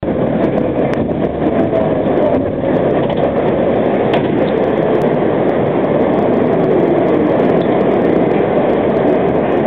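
Cable car turning on a hand-pushed wooden turntable: a steady rumble as the car swings round, with faint gliding squeaks.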